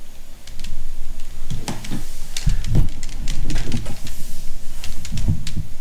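A 3x3 Rubik's Cube being turned by hand: a quick run of plastic clicks and clacks as the layers turn, with a few duller knocks from handling.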